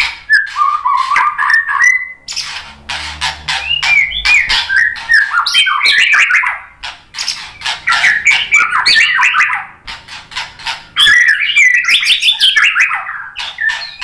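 White-rumped shama singing: fast runs of sharp chipping notes mixed with warbled whistled phrases, in several bursts of a few seconds each with brief pauses between them.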